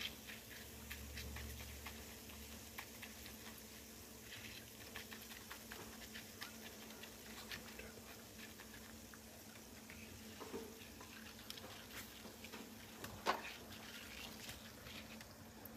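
Faint sizzling and crackling of a banknote frying in a pan of bubbling liquid, with scattered small pops throughout and one sharper click about 13 seconds in.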